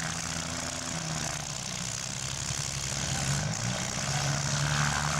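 Compact-car engines running and revving in a demolition derby, their pitch rising and falling several times.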